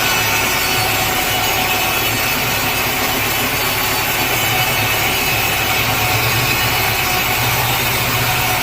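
Sawmill saw cutting through a large teak log, a steady unbroken sawing sound with a low hum underneath.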